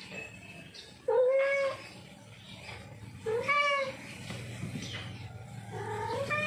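Male domestic cat in heat meowing three times, about two seconds apart, each a loud drawn-out call that rises then holds. The calls are mating calls to a female.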